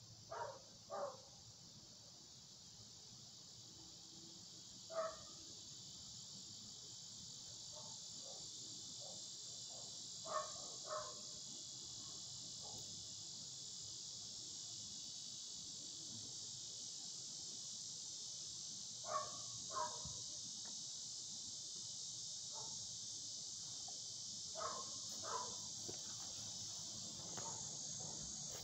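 A dog barking at a distance, mostly in pairs of short barks, every few seconds. The incessant barking of a dog left shut in a room alone. Under it runs a steady high chorus of insects.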